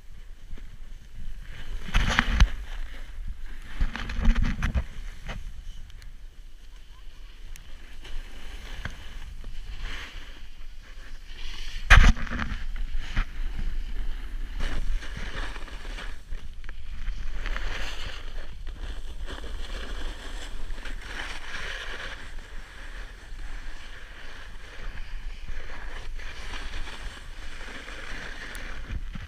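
Snowboard sliding and carving over snow, a continuous scraping hiss from the board's base and edges. A few louder low rumbles come through, with a sharp knock about twelve seconds in.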